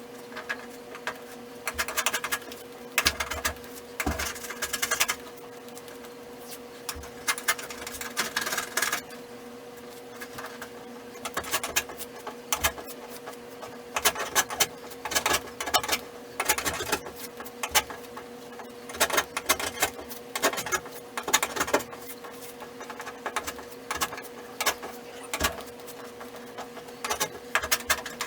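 Bursts of rapid clicking and scraping, coming and going every few seconds, over a steady hum.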